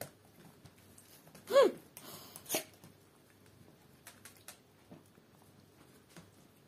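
A single short, high cry from a pet about one and a half seconds in, rising then falling in pitch, followed by a brief rustle and a click, then only faint small ticks.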